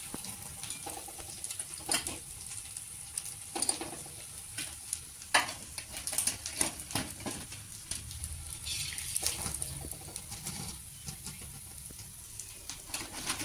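Hot oil sizzling steadily in a brass kadhai as fried wheat-flour mini samosas are scooped out with a wire skimmer. Scattered metal clinks come from the skimmer striking the kadhai and a steel plate as the samosas are tipped out.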